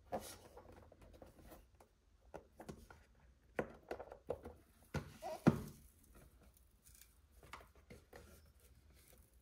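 Rigid cardboard product box being handled and opened: scattered soft knocks, taps and scrapes of the box and its lid, the loudest a sharp knock about five and a half seconds in, with light rustling and tapping of the card insert and manual near the end.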